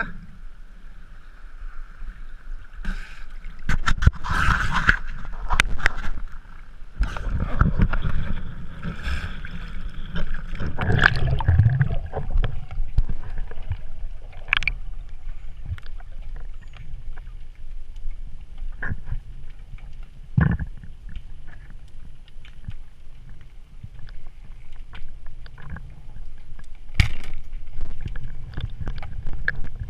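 Water sloshing and gurgling, with scattered knocks and clicks and a low rumble, as from a swimmer moving through the water while spearfishing.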